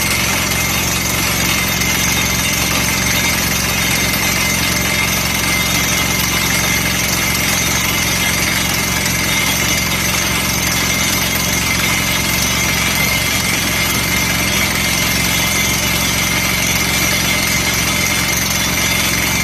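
JK650-2 water well drilling rig running steadily, a loud even machine noise with a constant high whine over it.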